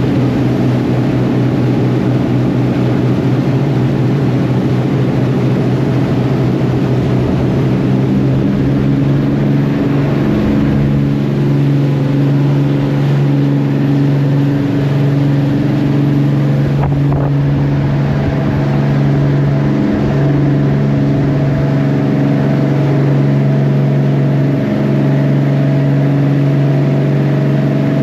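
A fishing boat's engine running steadily at a constant drone, its pitch shifting slightly every few seconds.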